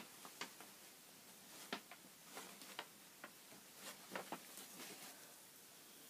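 Near silence with scattered faint, short clicks and rustles, typical of small items being handled.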